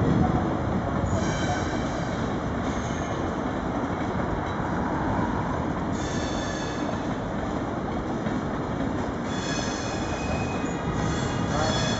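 Passenger train rolling slowly along the station tracks with a steady low rumble, its wheels squealing in high, shrill tones three times: about a second in, around six seconds, and again near the end.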